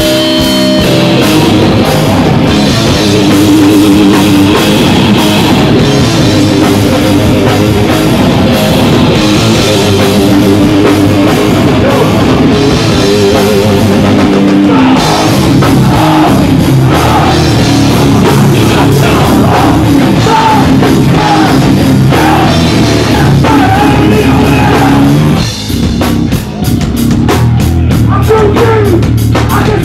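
Hardcore band playing live at full volume: distorted electric guitars over a pounding drum kit, with a brief stop-start break about 25 seconds in.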